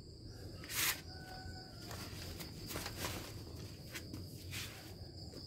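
Crickets chirping steadily in the background, with a short rustle about a second in and a few faint clicks, like footsteps or the handling of a machine.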